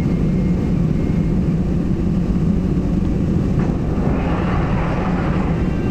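Seoul Line 2 subway train running, a steady low rumble of wheels and motors heard from inside the front car. A hiss swells briefly about four seconds in.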